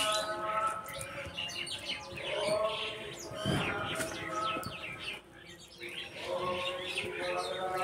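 Small birds chirping and twittering throughout, over held, pitched tones that fade in and out. There is a soft knock about three and a half seconds in.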